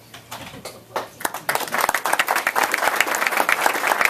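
Audience applauding: a few scattered claps about a second in quickly swell into steady applause from a roomful of people.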